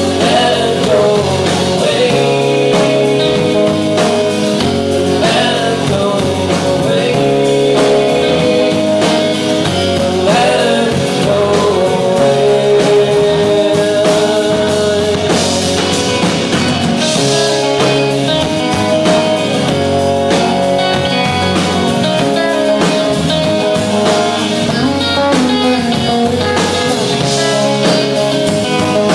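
Live rock band playing loud, bluesy rock with electric guitars and a drum kit, and a male voice singing at times.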